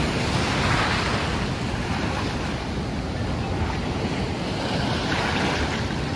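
Sea waves breaking and washing, with wind buffeting the microphone. The wash swells about a second in and again near the end.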